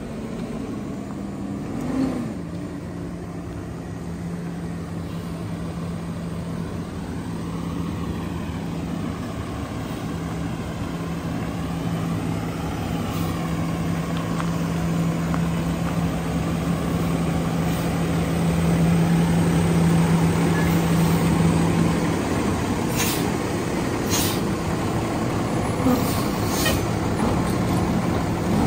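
Peterbilt 320 garbage truck's engine running at a steady low speed as the truck creeps closer, growing gradually louder. A few short air-brake hisses come near the end, and the engine picks up just as it ends.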